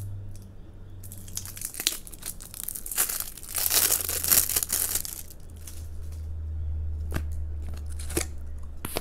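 Clear plastic shrink-wrap being torn and peeled off a plastic tub of slime, crinkling loudest in the middle, followed by a few light clicks near the end.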